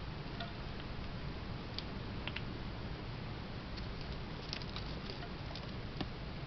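A squirrel rummaging in a store of bird seed: scattered small clicks and crackles at irregular intervals over a steady background hiss.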